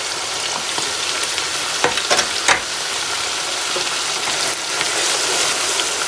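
Chicken and onions sizzling in oil in a large stainless steel pot, a steady frying hiss, as freshly added chopped tomato is stirred in with a wooden spoon. A few sharp knocks of the spoon against the pot about two seconds in.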